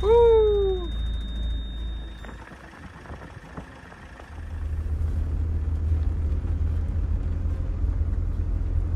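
A motorhome's engine running just after being started for the first time since autumn, a steady low rumble that grows louder about four and a half seconds in. A short, loud falling cry sounds right at the start, and a steady high tone stops about two seconds in.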